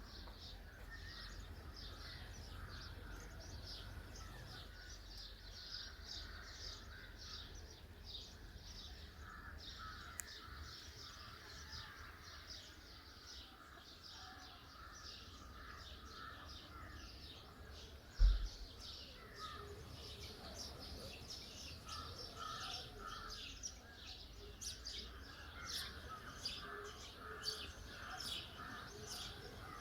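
Outdoor dawn chorus of many birds chirping in quick, overlapping calls, over a faint low rumble of wind or outdoor noise. A single low thump comes a little past the middle.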